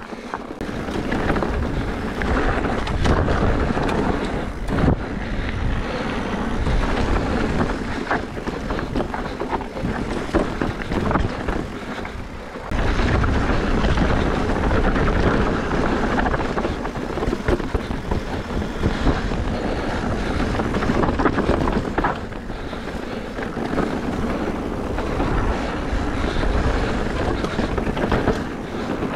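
Riding noise from a 2020 Specialized Turbo Levo electric mountain bike on a dirt trail: wind rushing over the microphone, with rolling rumble and scattered knocks and rattles. It gets louder about halfway through.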